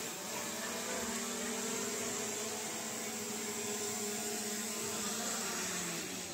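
DJI Mini 3 Pro quadcopter's propellers and brushless motors whirring with a steady hum as it lands. The hum dies away near the end as the motors stop.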